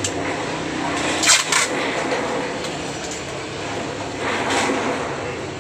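Packing tape being pulled off the roll and stuck onto a parcel, with short loud ripping bursts about a second in and a weaker one around four and a half seconds.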